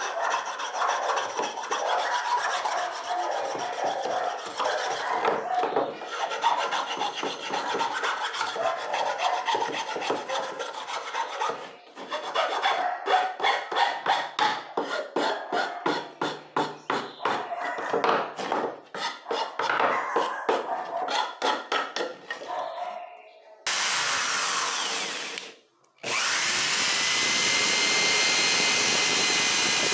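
Flat steel file rasping against pine, smoothing cut notches: a continuous scrape at first, then separate back-and-forth strokes from about halfway. About six seconds from the end a cordless drill starts, running steadily as it bores into the pine, with a brief stop.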